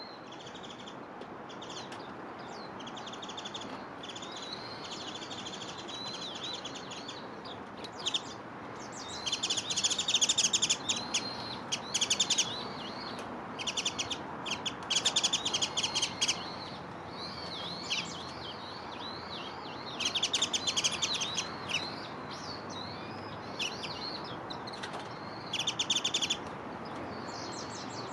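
Small songbirds calling: bouts of rapid chattering trills and short curved chirps, each a second or two long, starting about eight seconds in, over a steady low background noise.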